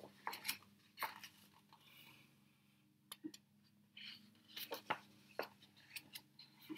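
Paper pages of a hardcover picture book being turned and handled: a series of short, sharp rustles and flaps, in clusters about a second in and again between about four and six seconds.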